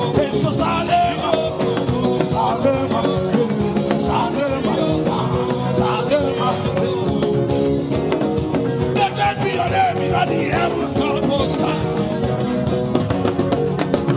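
Upbeat gospel chant music: a band with drum kit playing, with voices singing over it.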